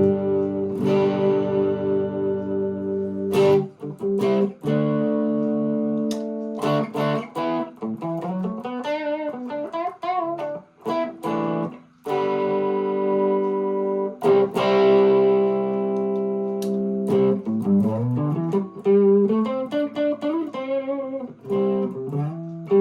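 Electric guitar played through a Behringer OD300 overdrive pedal into a Vox MV50AC amp, with the pedal's mode and drive turned all the way down for a light, mildly driven tone. Ringing held chords alternate with single-note lead lines that bend and slide in pitch.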